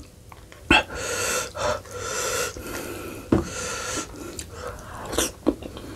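Close-miked eating sounds: chewing and sucking on meat pulled from a cooked lamb's head, with breathing through the nose. A few sharp wet mouth clicks land about a second in, about halfway, and near the end.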